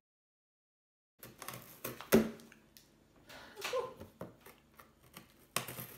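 Cat on a cardboard box: scattered taps, clicks and scratchy rustles of paws and fur against the cardboard, starting after about a second of silence, with one sharper knock about two seconds in.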